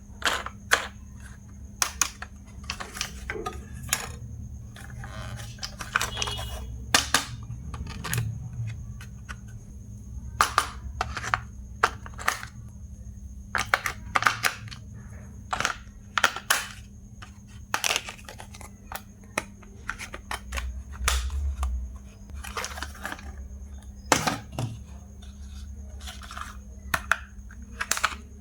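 Hard plastic toy parts and packaging being handled: irregular sharp clicks, taps and light rattles, over a faint steady hum.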